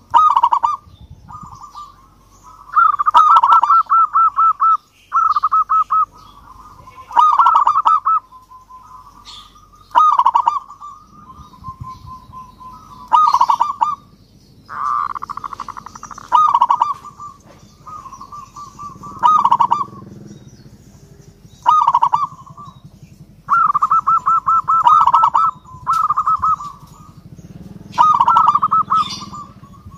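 Zebra dove (perkutut) singing: repeated phrases of quick, rolling coos every two to three seconds, a few drawn out into longer trills.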